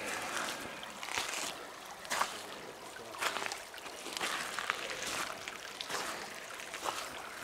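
Footsteps in soft, wet ground, a short scuffing squelch about once a second, over a faint steady outdoor hiss.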